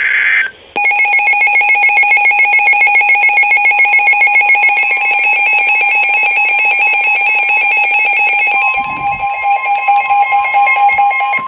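Emergency Alert System broadcast tones: a brief burst of SAME header data warble, then about ten seconds of a loud, steady, harsh alert tone that cuts off abruptly. This is the attention signal that precedes a National Weather Service tornado warning.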